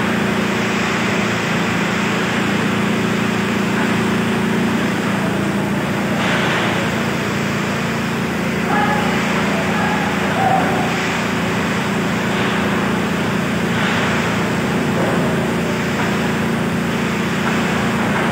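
Typhoon wind and heavy rain on a metal-roofed covered gym: a loud, steady roar that swells several times in gusts.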